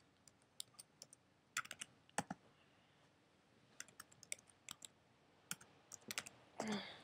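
Faint, irregular light clicks and taps, in small clusters a few times a second, from hands handling things close to the microphone.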